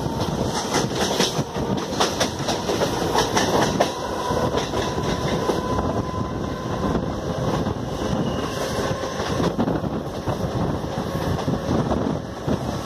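Mumbai suburban electric local train running at speed, heard from its open doorway: a steady rumble with the clatter of wheels clicking over rail joints and points.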